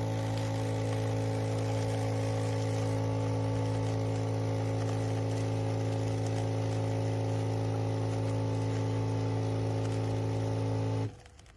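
Nespresso capsule machine brewing: its pump runs with a steady buzzing hum made of several steady tones, then cuts off suddenly near the end as the brew finishes.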